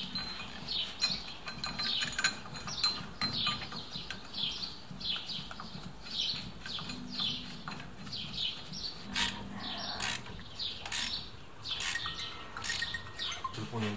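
Small birds chirping over and over, short falling chirps about two a second. In the second half come a few sharp metal clicks as a steel brake caliper bracket is fitted and bolted onto the axle hub.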